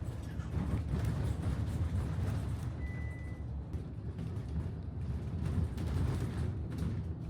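Bus engine rumbling steadily, with a short high beep about three seconds in.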